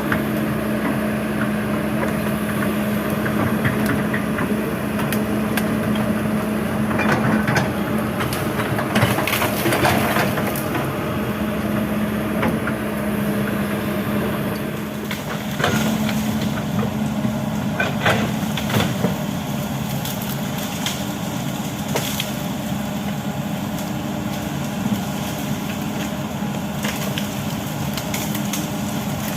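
Kobelco SK200 excavator's diesel engine running steadily, with repeated cracking and splintering of wood as the machine breaks through trees and brush. The cracks come in clusters, several about a quarter to a third of the way in and more past halfway.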